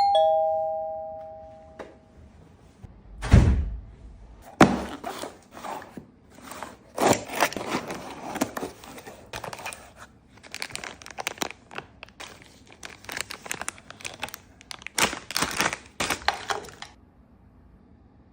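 A two-note chime that rings out and fades over about two seconds, then a heavy thump a little over three seconds in. Then comes a long run of irregular clicks and clatter of hard objects, which stops shortly before the end.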